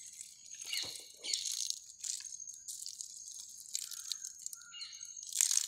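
Water-soluble NPK fertilizer solution being poured over orchid leaves, stems and roots, splashing and pattering in short irregular bursts.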